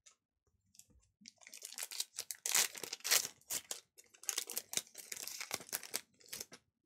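Foil wrapper of a Panini Donruss basketball card pack being torn open and crinkled by hand: a dense crackling that starts about a second in, is loudest in the middle and dies away near the end.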